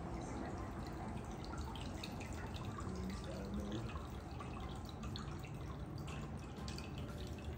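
A shaken cocktail being poured into a cocktail glass, trickling and dripping with many small drops.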